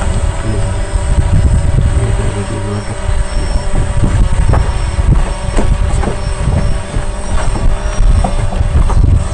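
Boat engine running steadily: a loud drone with an uneven low rumble under it.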